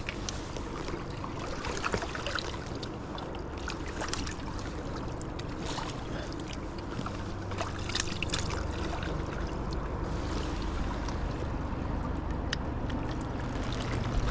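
Steady rush of river water with a low wind rumble, broken by scattered small splashes and clicks while a small smallmouth bass is played in.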